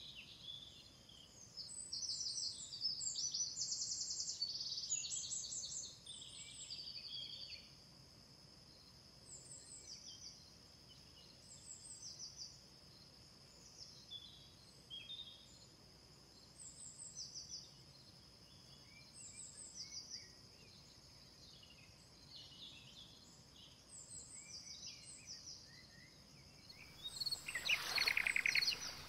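Birds chirping and calling in short repeated phrases over a steady high-pitched hum, with a louder, closer rasping call for a couple of seconds near the end.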